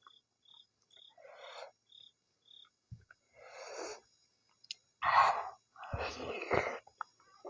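A person eating nettle (sisnu) soup with dhido close to the microphone: several breathy slurping and sucking bursts, loudest in the second half. A faint high chirp repeats about twice a second for the first few seconds.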